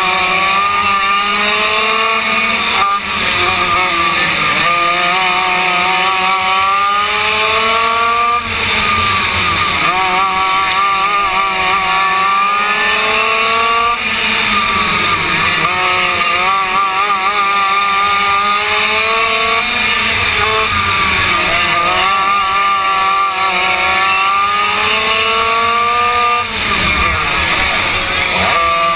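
Yamaha KT100 two-stroke racing kart engine at race pace, heard from on board, climbing in pitch along each straight and dropping off sharply into each turn, a cycle about every five to six seconds. Other karts' engines run close by.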